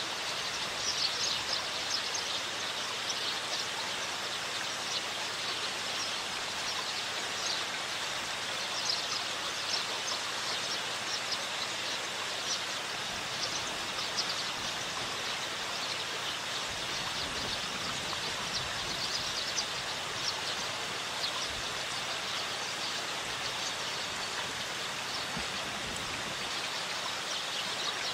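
Small songbirds giving many short, high chirps over a steady rushing noise.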